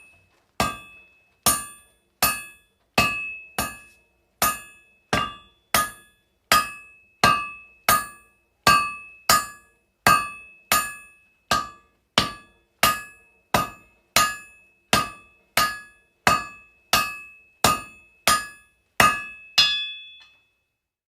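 Steady hammering, about three blows every two seconds, each knock followed by a short bright metallic ring; the blows stop shortly before the end.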